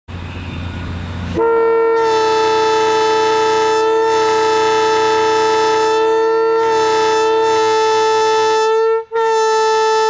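Leslie S2M two-chime locomotive air horn blowing a long, loud two-note chord after a low steady hum. Near nine seconds the lower note cuts out, and after a brief break the horn sounds on with only the higher note: one chime quitting, which fits this horn being listed as a failure.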